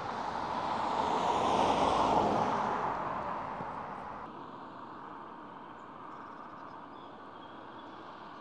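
A car passing by on the road: tyre and engine noise swelling to a peak about two seconds in, then fading away by about four seconds, leaving a faint steady background.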